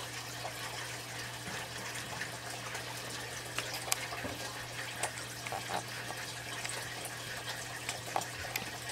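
Steady background sound of running water with a low hum underneath, and a few faint clicks as the small opened plastic controller box is handled.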